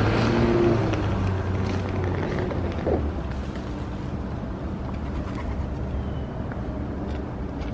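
Street traffic: a steady hum of passing traffic, with a nearby vehicle engine that fades over the first few seconds.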